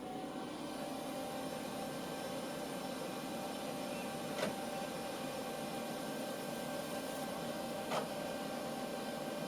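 Old Socket 7 PC running just after being switched on: a steady whir of cooling fans and power supply with a faint whine. Two short clicks come about four and a half and eight seconds in.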